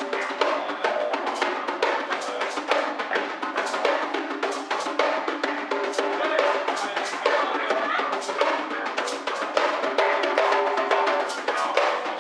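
Live improvised music: fast, busy drumming and percussion with sustained pitched notes over it.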